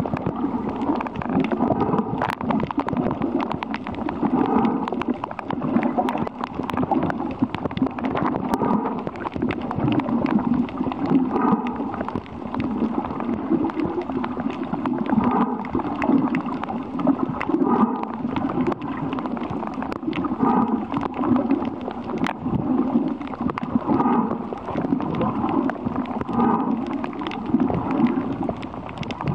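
A diver's breathing heard underwater: bursts of exhaled bubbles gurgling every second or two, with scattered small clicks.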